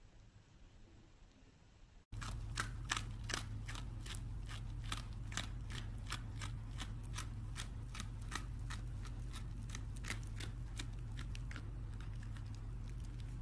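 Near silence for about two seconds, then a dog chewing: a quick run of crisp smacking clicks, about three a second, over a steady low hum.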